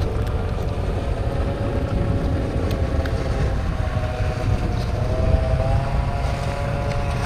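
A steady low rumble with a faint, slightly wavering motor hum running through it.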